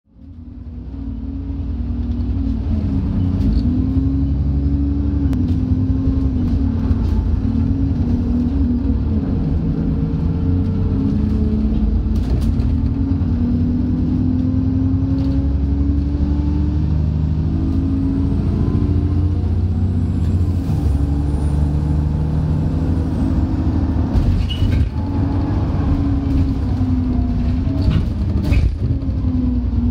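Alexander Dennis E40D double-decker bus heard from inside the saloon, its diesel engine revving high through the ZF automatic gearbox on revised Topodyn gearbox software: the engine note climbs and then drops at each gear change, several times. Sharp interior rattles and knocks come through now and then.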